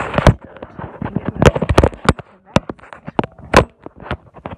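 Handling noise on the camera's microphone: a rapid, irregular run of sharp knocks, taps and rubs as the camera is moved about and set down at floor level. The loudest knocks come about one and a half and three and a half seconds in.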